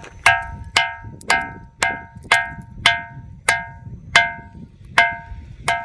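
A large ringing rock struck repeatedly with a hand-held stone, about ten blows at roughly two a second and slowing slightly toward the end. Each blow gives a clear metallic, bell-like ring of several pitches that dies away quickly, the iron-like sound the rock is locally known for.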